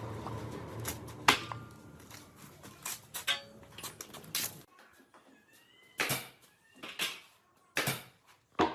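Workshop handling noises: a low steady hum that cuts off about halfway, and a scatter of sharp knocks and clicks, the loudest ones in the second half.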